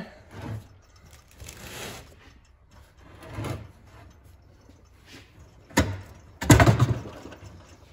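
Handling noise from a 1964–66 Thunderbird rear quarter-window assembly, its metal box and regulator being shifted and turned on a workbench: scattered knocks and scrapes, with a louder scraping clunk near the end.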